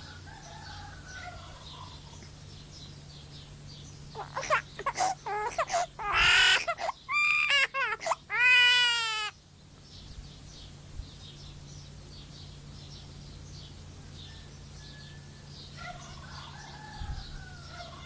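Pet myna mimicking a human baby's cry. It gives a run of loud, wavering wail-like calls from about four seconds in until about nine seconds, ending on a fast pulsing note, with fainter calls near the start and near the end.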